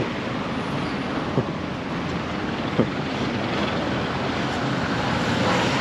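Steady city street traffic noise with wind on the microphone, and two brief taps partway through.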